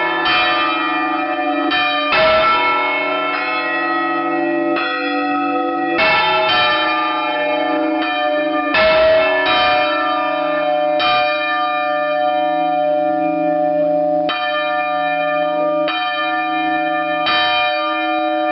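Church tower bells, hung for full-circle rope ringing, ringing one after another. A new stroke comes roughly every one to two seconds, and each bell's long hum rings on under the next.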